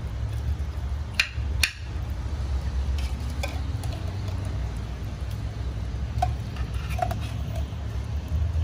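Two sharp clicks close together about a second and a half in, then a few lighter taps, over a steady low rumble.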